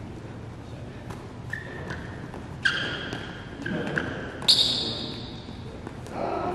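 Basketball gym sounds in a large echoing hall: scattered faint thuds and two sharp hits, about two and a half and four and a half seconds in, each ringing on briefly with a metallic ping.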